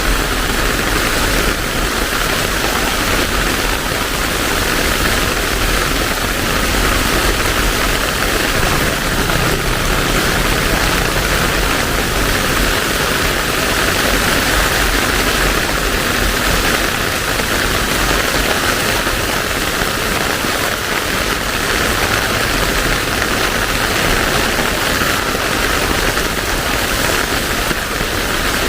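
Heavy rain falling steadily: a dense, even hiss that holds at the same level throughout.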